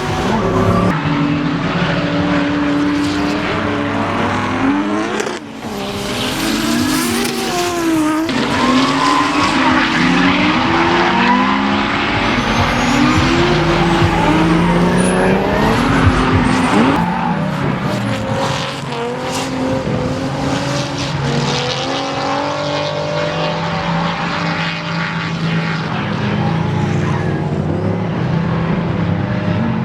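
Race cars on a track, their engines revving hard, pitch rising and falling over and over through throttle and gear changes, with tyre squeal under the engine noise.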